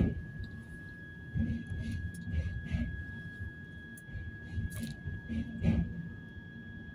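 Passenger train carriage running: an uneven low rumble with scattered knocks and rattles, over a steady thin high-pitched tone.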